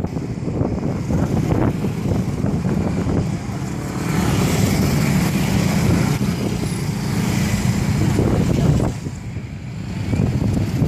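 Motor scooters and motorcycles passing close by on a road. The engine and tyre noise swells for several seconds in the middle, then falls away near the end.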